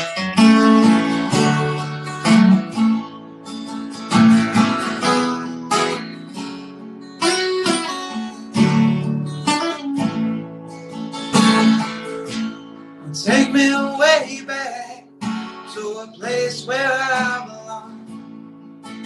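Solo acoustic guitar, strummed and picked chords playing the instrumental intro of a folk-country song.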